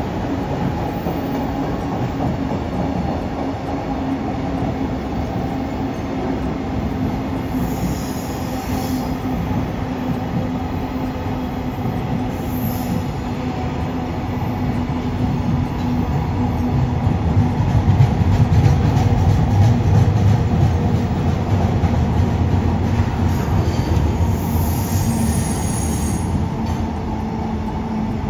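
Train running along the line: a continuous rumble of wheels on rail with a steady hum. It grows louder past the middle, then eases toward the end.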